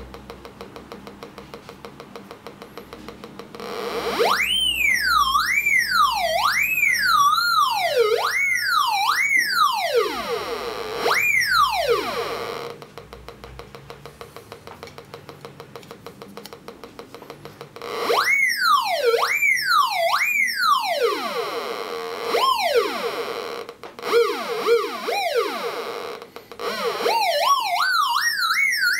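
Raptor X pulse induction metal detector with a 32D coil giving its target signal: an electronic tone that warbles, gliding up and down over and over as it responds to a small metal object near the coil, in two spells of about eight and eleven seconds. Between them only a faint, fast ticking threshold sound, with no interference noise.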